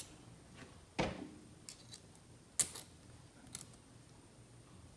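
Light metal clicks and clinks from the two-piece rocker arm of a Ford flathead fuel pump being handled and fitted together by hand. There are three or four separate clicks, the sharpest about two and a half seconds in.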